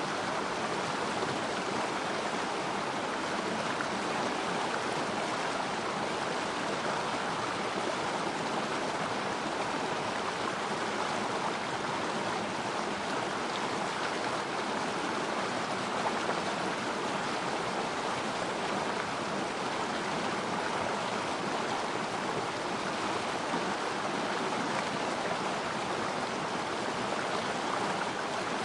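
Water flowing and splashing over rocks in a small river stream, a steady, unbroken rush.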